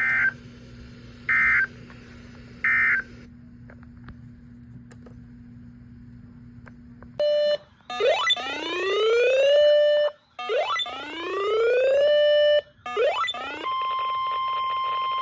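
NOAA Weather Radio alert: three short digital data bursts marking the end of one warning message, then after a pause the radio's alarm, with a short tone, two rising whooping sweeps that each hold at the top and the start of a third, then a steady warning alarm tone.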